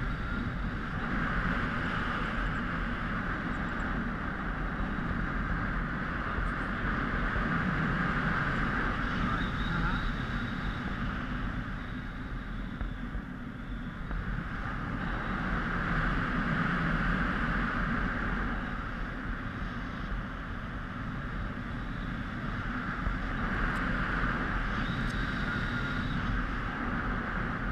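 Wind noise rushing over a helmet-mounted GoPro in tandem paraglider flight, swelling and easing in slow waves about every eight seconds as the glider turns.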